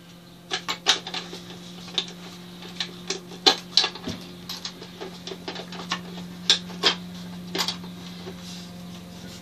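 Irregular light clicks and knocks of a wheelbarrow wheel's parts being fitted together by hand, over a steady low hum.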